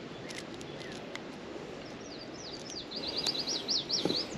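A songbird singing a fast run of high, repeated chirps, starting about halfway through and growing louder toward the end, over a steady outdoor background hiss.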